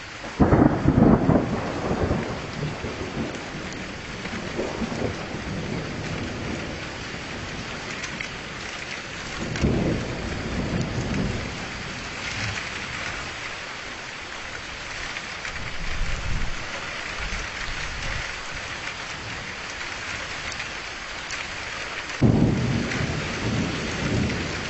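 Steady rain with rolling thunder: a sudden loud rumble about half a second in, another around ten seconds, and a third near the end, each dying away over a couple of seconds.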